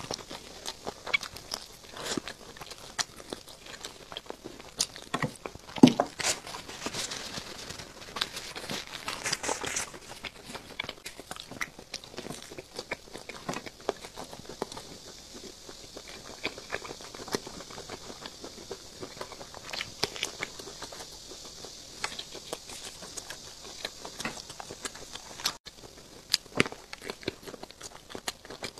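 Close-miked eating: biting and chewing chicken drumstick and then a skewered sausage, with many short wet mouth clicks and smacks.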